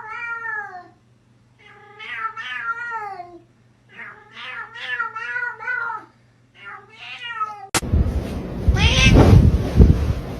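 Cat meowing in long, drawn-out, wavering yowls, four in a row. About three-quarters of the way in, a sudden click gives way to a louder, noisy stretch with another yowl over it.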